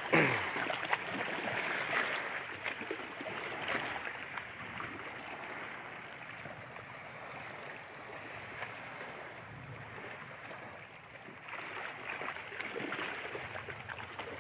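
Steady rushing noise of wind and waves, with a short sound falling in pitch right at the start.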